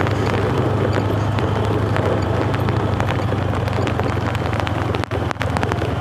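Motorcycle engine running steadily as the bike is ridden in heavy rain, with wind noise and scattered sharp ticks over it.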